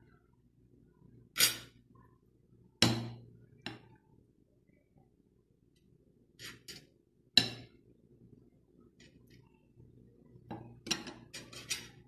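Metal ladle clinking against a ceramic serving bowl and plate as stew is scooped and served: separate sharp clinks, the loudest about one and a half, three and seven seconds in, then a quick run of lighter clinks near the end.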